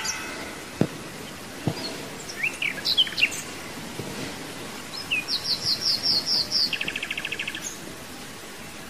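Birds chirping over a steady faint hiss of outdoor ambience: scattered short high chirps, then a run of about seven quick high notes past the middle, followed by a short buzzy trill.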